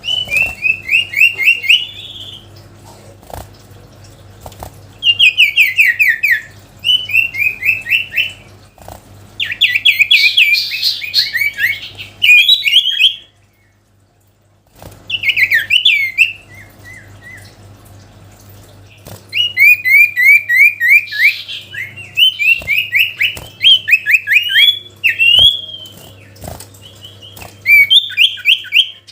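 Sirtu songbird in full song: loud bouts of fast, rattling runs of rapidly repeated notes, each bout a second or two long, separated by short pauses with a longer break about halfway through.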